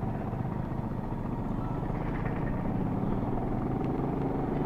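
Motorcycle engine running steadily under way, heard from the rider's own bike with a low rumble of wind noise.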